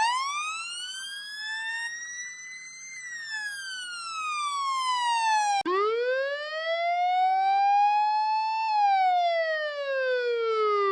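Fire truck siren wail, edited as a sound effect: a slow rise in pitch for about three seconds, then a fall. The pattern plays twice, with an abrupt cut between the two, and the second run is pitched clearly lower.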